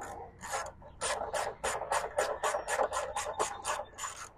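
Hand ratchet run down on the bolts of a mower deck's belt cover, a fast, even train of ratcheting clicks, about four to five strokes a second.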